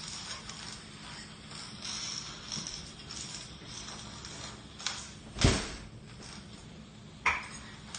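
A rubber hopper ball thudding on a tile floor as a toddler bounces on it, over a steady hiss. One loud, deep thud comes about five and a half seconds in, with a lighter knock shortly before and a sharp knock near the end.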